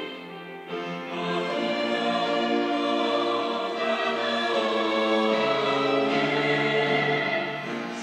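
Mixed church choir of men's and women's voices singing a sacred anthem in sustained chords. The sound dips briefly right at the start, then the voices come back in full and hold long notes.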